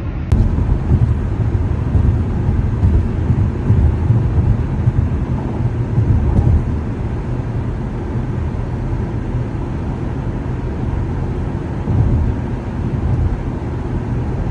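A car on the move: a steady low rumble of engine and road noise, with one sharp click just after the start.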